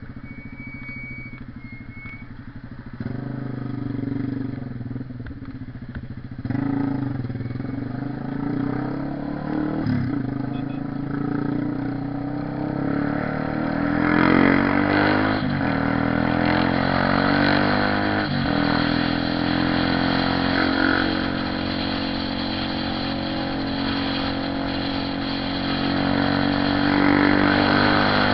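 Honda CB 300R motorcycle's single-cylinder engine running on a ride, its pitch rising and falling through several revs and gear changes. It grows louder about halfway through.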